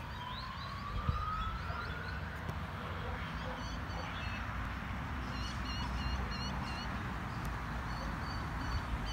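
Distant police car siren wailing: one slow rise in pitch over the first two seconds, then it fades under a steady low rumble. Short, repeated high chirps come through in the middle and near the end.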